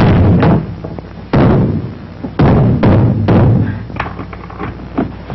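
Heavy thumps, five in about three and a half seconds, each with a short ringing tail, followed by a few lighter knocks near the end.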